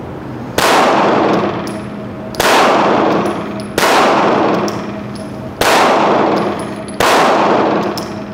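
Glock 17 9mm pistol fired five times, slowly, about a second and a half apart. Each shot rings on in the echo of an indoor range.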